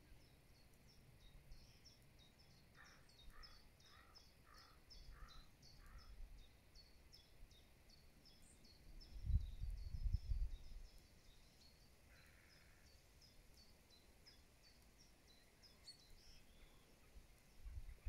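Faint countryside birdsong: a small bird repeating quick high notes, about three a second, with a crow cawing six times in a row a few seconds in. A low rumble, the loudest sound, comes about nine seconds in and lasts a couple of seconds.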